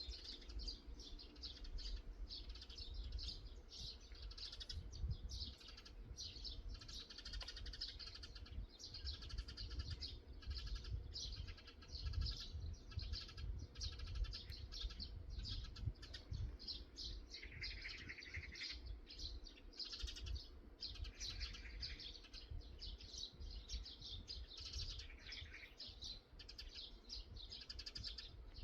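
Small birds chirping and twittering without pause, many short overlapping calls, with a few fuller song phrases in the middle. A low rumble runs underneath.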